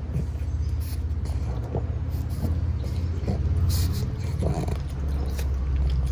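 Pug snoring in its sleep: a low, fluttering snore that swells and eases with each breath.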